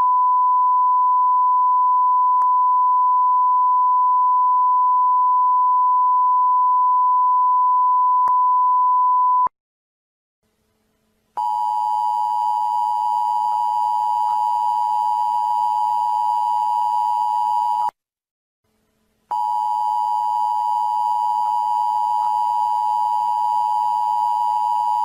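A steady 1 kHz test tone of the kind played over television colour bars, lasting about nine and a half seconds and cutting off suddenly. After a short silence, a two-tone emergency-alert attention signal sounds twice, each time a steady pair of close tones for about six and a half seconds, with a gap of about a second and a half between them.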